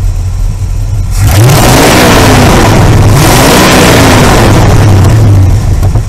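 Carbureted engine with a fresh Pertronix electronic ignition, idling, then revved up twice by throttle blips. Each time the pitch rises and falls back, and it settles to a steady idle near the end, the behaviour of a correctly timed and carb-tuned engine.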